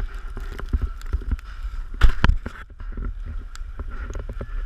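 Footsteps and knocking of gear against a body-worn action camera as its wearer walks through slushy snow, over rumbling wind on the microphone. The loudest cluster of knocks comes about two seconds in.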